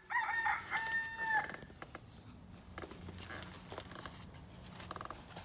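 A rooster crowing once: a few short notes ending in a long held one, lasting about a second and a half. After it only faint ticks over a low hum.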